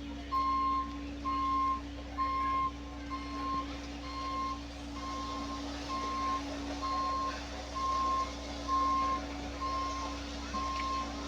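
A heavy construction machine's reversing alarm beeping steadily, about one single-pitched beep a second, over the machine's diesel engine running.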